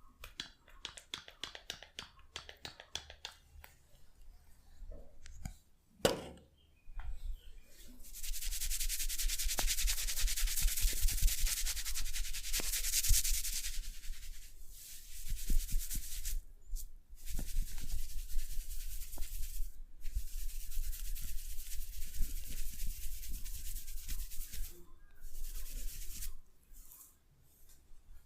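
Hands massaging a head: a run of quick light taps, then a single sharp click about six seconds in. After that come long stretches of fast, hissy rubbing of hands through hair, broken by a few short pauses.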